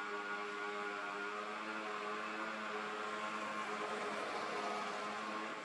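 Steady droning hum made of several held tones over an even hiss, the tones weakening near the end.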